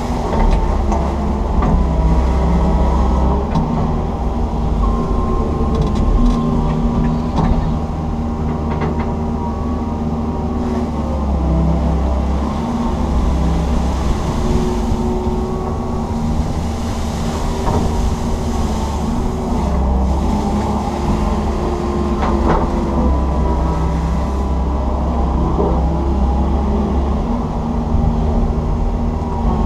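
Komatsu PC160 hydraulic excavator running under load, heard from inside the cab: a steady diesel drone whose note shifts every few seconds as the machine digs and swings. There are a few sharp knocks and clunks along the way.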